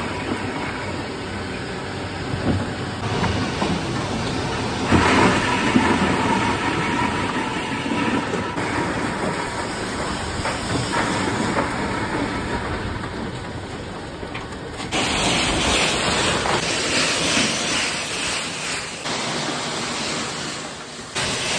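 Ice plant machinery running: a belt-driven ice crusher and a bucket elevator carrying crushed ice, a steady mechanical noise that changes at several cuts. From about fifteen seconds in, a louder hiss as crushed ice is blown into a hold.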